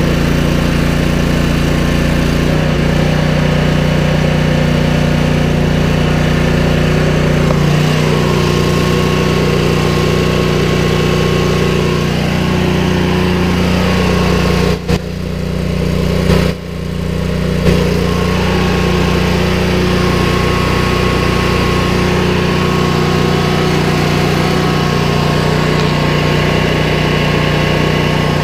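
Kohler engine of a Cub Cadet RZT50 zero-turn mower running steadily just after starting, left running so fresh oil reaches the whole engine and the new fuel filter fills. The sound dips briefly twice about halfway through.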